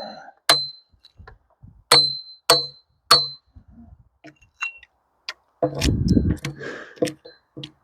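Hatchet blows chopping into an oak log, each strike sharp with a brief metallic ring; four strikes come in the first three seconds, then lighter knocks. A rougher clattering rumble follows about six seconds in.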